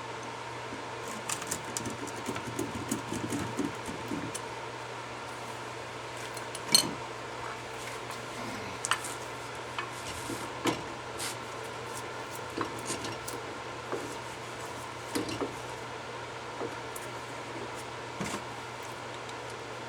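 Scattered metallic clinks and knocks of hand tools working on a seized front disc brake caliper, over a steady low hum. The loudest knock comes about seven seconds in.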